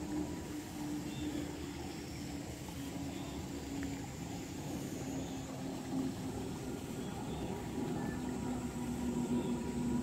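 Steady outdoor garden ambience: a constant even hiss under a low droning hum that shifts slightly in pitch, with a few faint, short high chirps.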